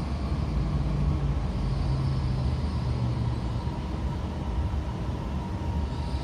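Running noise inside an E5-series Shinkansen motor car: a steady low rumble of the train at speed, with thin steady tones from the traction equipment over it.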